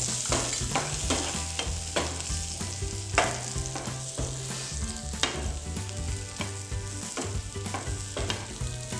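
Chopped green capsicum sizzling as it fries in butter in a nonstick pan, stirred with a spatula that scrapes and taps against the pan at irregular moments. The sharpest taps come a little past three seconds and again near five seconds.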